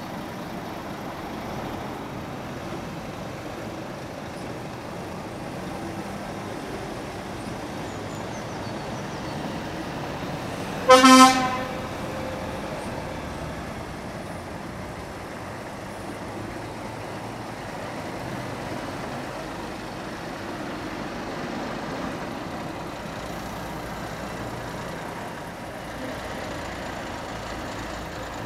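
Steady background rumble of trucks and traffic, broken about eleven seconds in by one short, loud blast of a truck horn.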